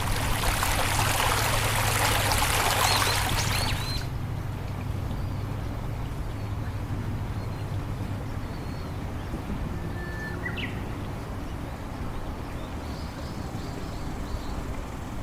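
Rushing water, a loud steady hiss that cuts off suddenly about four seconds in, over a constant low hum. A bird gives a short rising chirp about ten seconds in, and a few faint chirps follow near the end.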